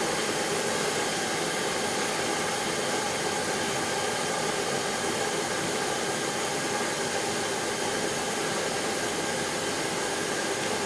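Powerful hand-held gas torch burning with a steady, even hiss of rushing flame.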